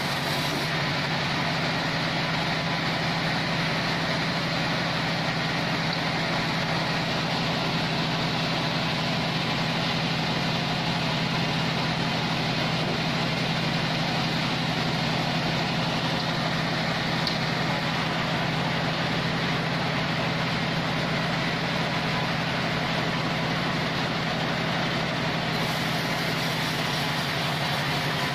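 Band sawmill's engine running steadily at an even speed, a continuous drone that does not change.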